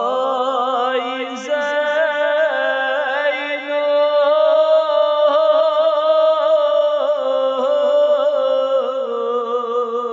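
A solo male voice chanting a Shia noha lament, drawing out the word 'aaye' into one long held note that wavers in pitch.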